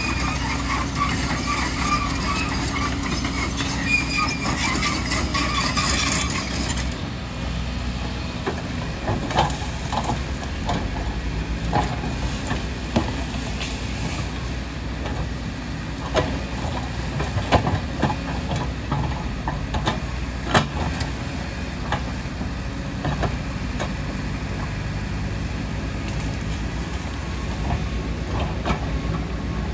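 Excavator's diesel engine running steadily under load, with a high metallic squeal for the first several seconds, then scattered sharp knocks and clanks of metal and rock.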